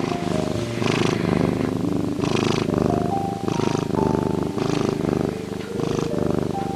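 A cat's deep, rhythmic purring growl, one pulse roughly every half second to a second, over soft music with held notes.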